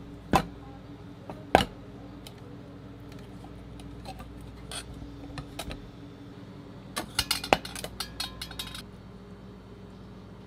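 Kitchenware knocking and clinking against a stainless steel bowl and steel worktop as butter is put into the bowl: two sharp knocks in the first two seconds, scattered light clicks, then a quick run of clinks around seven to eight seconds, over a steady low hum.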